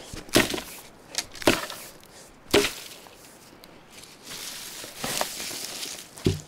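Hatchet chopping small branches in brush: three sharp strikes about a second apart, then a stretch of rustling twigs, and one more strike near the end.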